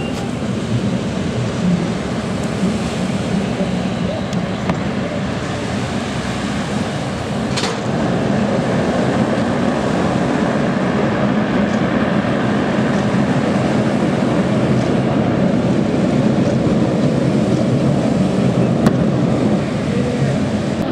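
ShinMaywa US-2 flying boat's four turboprop engines running steadily as it taxis on the water, growing louder about eight seconds in.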